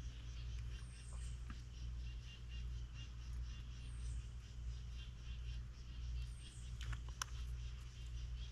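Quiet room tone: a steady low hum under faint, rapid chirping, with a couple of small clicks near the end.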